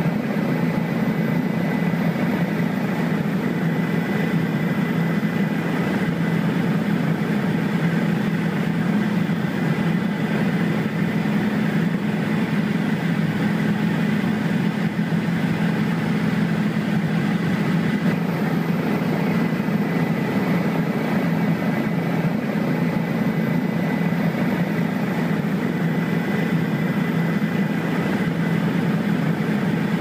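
Helicopter in flight, heard from on board: a steady drone of rotor and engine with a faint, thin high whine over it.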